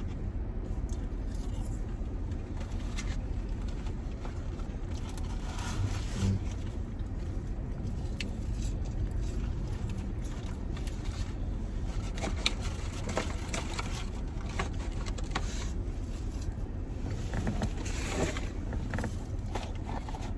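Steady low rumble inside a parked car's cabin with the engine running, with light scrapes, clicks and rustles of fast-food packaging and eating over it.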